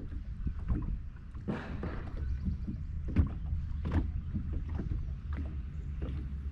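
Low rumble with scattered light knocks and rustles, typical of handling noise and wind on the microphone.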